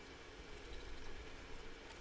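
Faint ticks and light scraping of a small precision screwdriver turning the screws that hold a vape mod's inner sealing plate, over a low steady background hum.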